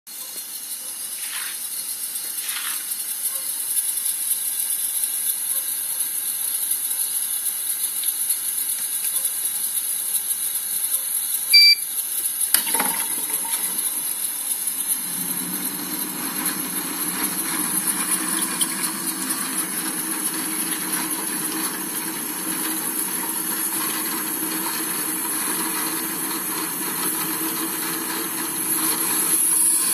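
Tuttnauer 2340E tabletop steam autoclave with a steady high hiss. About twelve seconds in there is a short electronic beep and then a click as the cycle is manually stopped. From about fifteen seconds a steady rushing sound with a low hum runs on.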